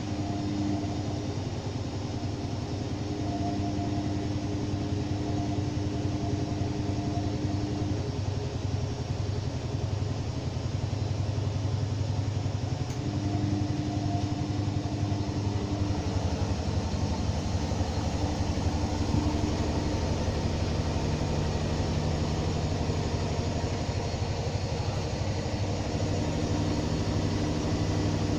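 Washing machine running, its motor and drum giving a steady hum and rumble. The hum's tones drop out and return, and shift lower about halfway through as the motor changes speed.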